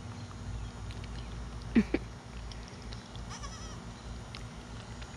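Newborn goat kid gives one short bleat, falling in pitch, about two seconds in, with small faint clicks around it while it is bottle-fed.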